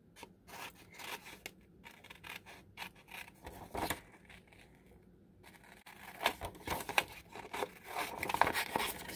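Small scissors snipping through a thin book page in short, irregular cuts around a printed picture, pausing briefly about halfway through.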